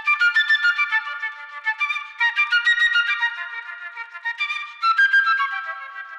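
Flute playing a fast passage of quick, high runs of notes in short phrases.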